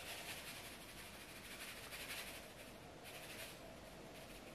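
Faint hiss of salt grains pouring from a cardboard carton's spout onto raw beef cubes in a glass bowl, coming in a few short spells.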